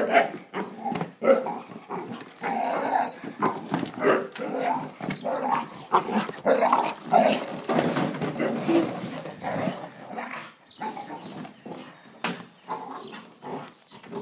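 English bull terrier growling and barking in irregular excited bursts as it attacks a lawn mower, busiest over the first ten seconds and thinning out after.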